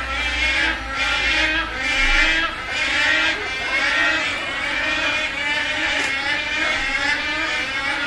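Wood storks calling: many birds at once in a continuous, overlapping chorus that swells and dips about once a second.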